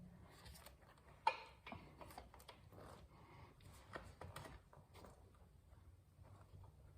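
Faint scattered clicks and light taps of metal parts and tools being handled, with one sharper click about a second in.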